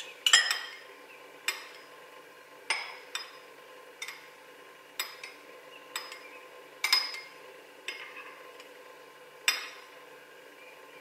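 A metal spoon stirring and clinking against small glass bowls of liquid: about a dozen sharp, irregularly spaced clinks, each ringing briefly, the loudest just after the start.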